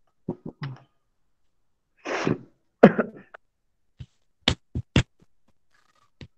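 Computer keyboard keys clicking, short sharp taps with a clear cluster of four about four to five seconds in, as lines of code are deleted in a text editor. A breathy noise and a louder, lower throaty sound come between the taps around two to three seconds in.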